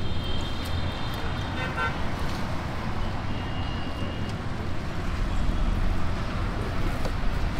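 Busy road traffic with horns sounding: a long high horn in the first two seconds and a shorter one about three seconds in, then a low vehicle rumble swelling near the end.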